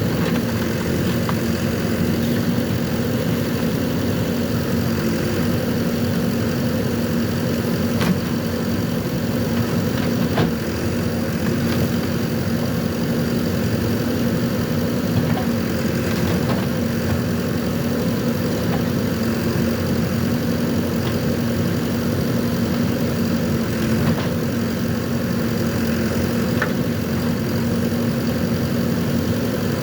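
JCB 3DX backhoe loader's diesel engine running steadily, with a few short sharp knocks over it, the clearest about 8 and 10 seconds in.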